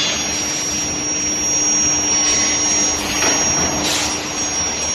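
Steel ball hot-rolling production line running: a steady mechanical roar with a constant hum and a high whine, and short hissing surges about three and four seconds in.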